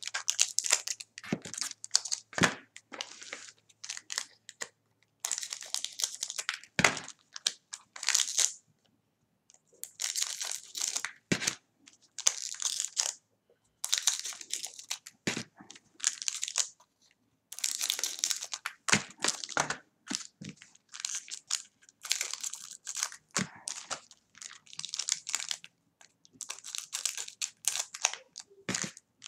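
Shiny foil wrappers of Bowman's Best baseball card packs crinkling and rustling as they are handled and cut open with scissors. The sound comes in repeated irregular bursts with sharp snips and clicks.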